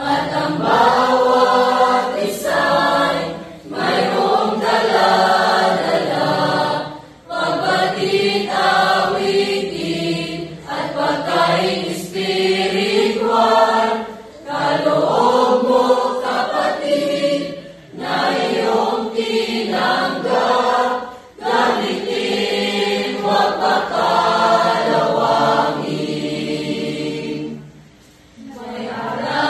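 A mixed choir of young voices singing together in phrases a few seconds long, with short breaks between lines and a longer pause near the end.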